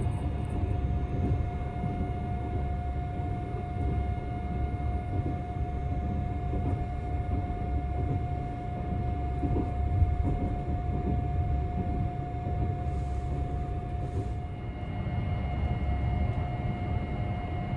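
Tobu 100-series Spacia limited express running at speed, heard from inside the car: a steady low rumble of wheels on rail with a steady whine.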